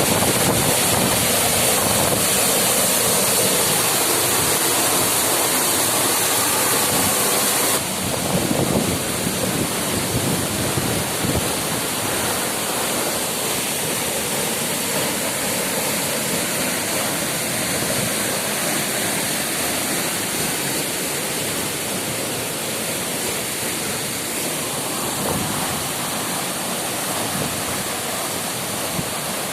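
Waterfall rushing in a steady roar of water. About eight seconds in the level drops suddenly and the top end thins out, then it carries on evenly.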